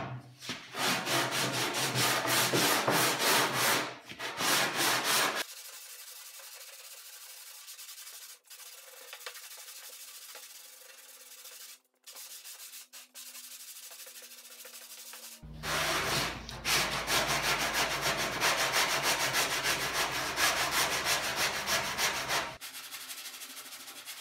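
Body filler being hand-sanded with 80-grit paper on a long sanding board, in rapid back-and-forth crisscross strokes that rasp across the panel. The sanding is loud for about the first five seconds, much quieter for the next ten, and loud again for about seven seconds before quieting near the end.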